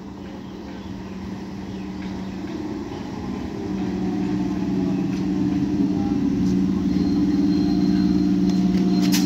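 Old Indian Railways electric multiple unit (EMU) local train running in along the platform: a steady low electric hum with wheel rumble that grows louder as it draws close, with a faint higher whine joining in the second half.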